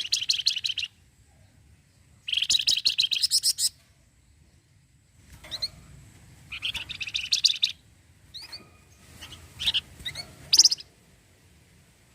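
Flamboyan (wergan jawa) songbird giving its rattling chatter, the 'cretetan': three quick, even trills of about a second each. Short, sharp rising whistle notes come in between.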